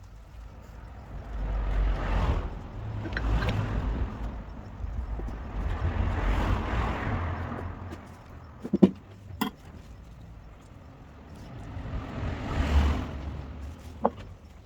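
Road vehicles passing by: three swells of rushing noise with a low rumble, each rising and fading over a few seconds. A few sharp clicks come in the middle and near the end.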